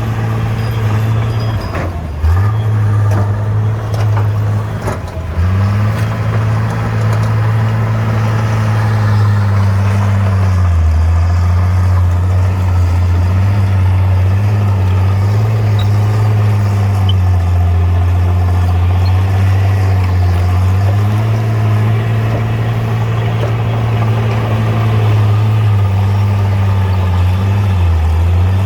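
Heavy diesel bulldozer engine running steadily at working revs. Its pitch dips briefly and recovers about four times, with a few sharp knocks in the first few seconds.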